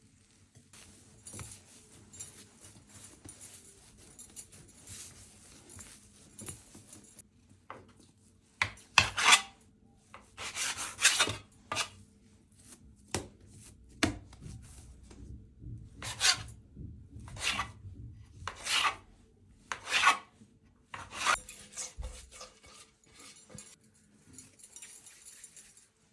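Hands working soft yeast dough for poğaça, with soft rubbing at first and then louder separate squishing, swishing strokes every second or two.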